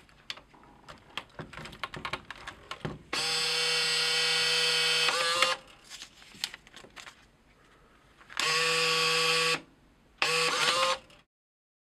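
MEI VN series bill validator's motor running in three separate runs: a steady whine with a hum under it for about two and a half seconds, then a shorter run and a still shorter third. It is driving the freshly replaced transport belts as the unit is tested. Light clicks and plastic handling come before the first run.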